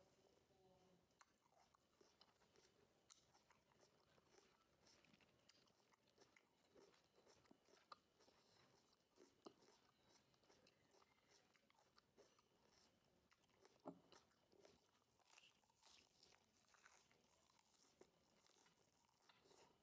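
Faint crunching and chewing of raw lettuce leaves: many small crisp crunches, with one sharper crunch about two-thirds of the way through.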